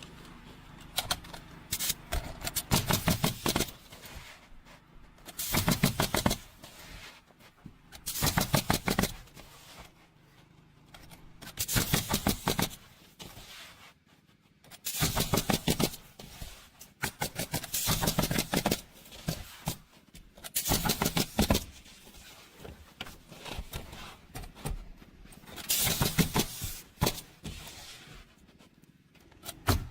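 Repeated short bursts of rapid mechanical clicking or rattling, each one to two seconds long, about every three seconds.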